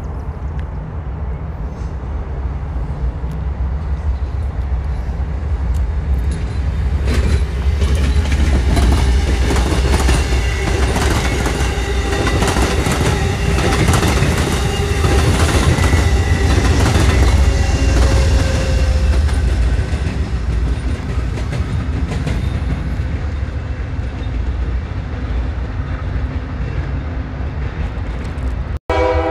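Amtrak Downeaster passenger train passing close by. A low rumble builds over the first few seconds, then wheels click over rail joints for about ten seconds as the cars go past, and the sound fades as the train pulls away.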